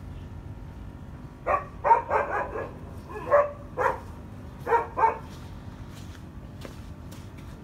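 A dog barking: about nine short barks in three quick bunches, over a steady low background hum.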